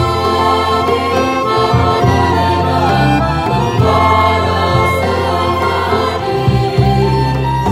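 A small ensemble of electronic keyboard, violin and acoustic guitar accompanying a group of women singing a song together.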